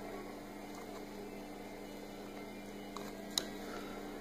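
Faint steady hum with one sharp small click about three and a half seconds in, as a fingertip presses a small cable plug into its connector on a laptop motherboard.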